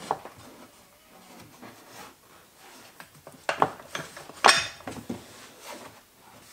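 Scattered metallic clinks and knocks from a trolley jack being set in place under a car, the loudest about four and a half seconds in with a brief ring.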